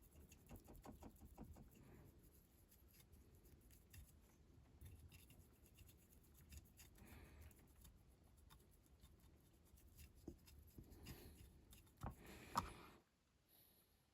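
Faint scratchy strokes of a paintbrush working paint over a small diecast model car body, with one sharper tap near the end.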